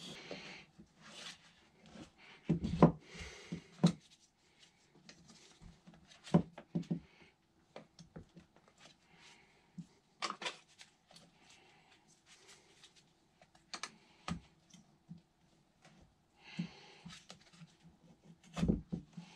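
Gloved hands working an 8.5-inch scooter tyre on its wheel on a workbench: scattered knocks and clicks with short stretches of rubbing, the loudest knocks about three seconds in and just before the end.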